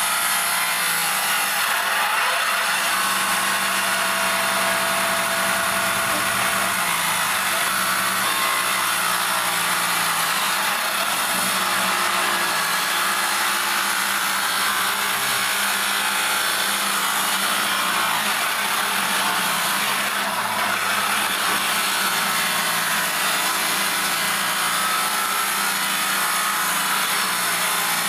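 Table-mounted power saw ripping a thick wooden plank lengthwise, a steady cutting noise with the motor's hum underneath, going on without a break.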